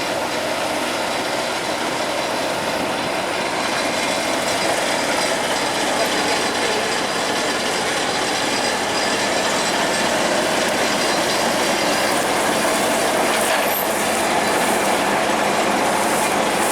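Heavy machinery running steadily: a dense, continuous mechanical noise that grows slightly louder over the stretch.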